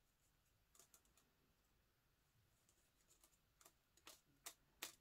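Faint, scattered clicks and ticks of thin titanium leader wire and a small metal crimp sleeve being worked between the fingers. The ticks come closer together and a little louder near the end.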